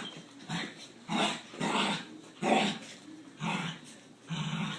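Dogs growling at each other in play: a run of short growls, one every half second to a second, with a longer one near the end.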